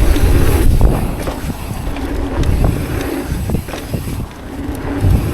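Wind buffeting the microphone of a chest-mounted camera while riding a mountain bike, a heavy low rumble that is loudest for about the first second and then eases.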